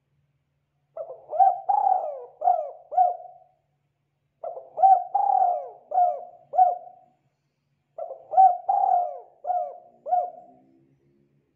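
Spotted dove cooing: three phrases of about five notes each, a second or so apart.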